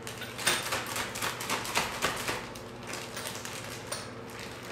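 Thick plastic piping bag crinkling and crackling as it is handled and held open, in a dense run of crackles over the first couple of seconds and a few smaller ones after, over a faint steady hum.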